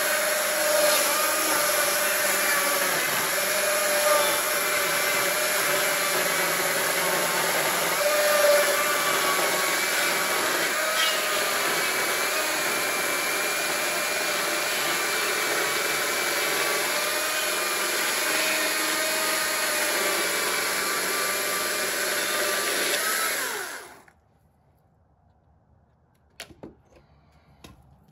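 Battery-powered Stihl chainsaw running at full speed as it rips lengthwise along a log: a loud, steady whine that cuts off suddenly about 24 seconds in, with no idling afterwards. A few faint knocks follow near the end.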